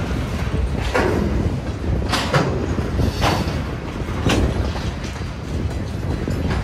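Freight cars rolling past at a road crossing: a steady low rumble of steel wheels on rail, broken by sharp wheel clacks every second or so as the trucks pass.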